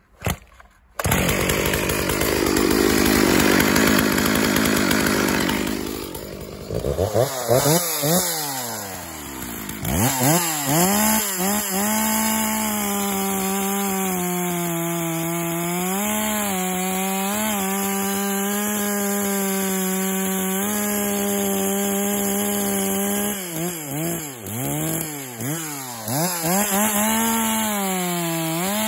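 Stihl 064 AVEQ two-stroke chainsaw, 1990 build, with a 40 cm bar and full-chisel chain, starting about a second in and cutting through a spruce log at full throttle. The engine pitch swings up and down as the throttle is blipped at first, then holds steady under load in the cut, dipping several times near the end.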